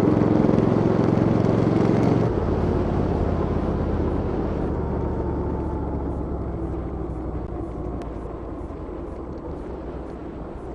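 A motor vehicle engine running loud and close, its level dropping suddenly about two seconds in, then fading steadily as it moves away.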